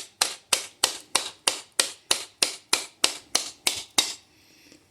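A steady series of light blows on an Indiel AVI 128 alternator, about three a second, struck to loosen the stator and caked dirt from the housing. The blows stop about four seconds in.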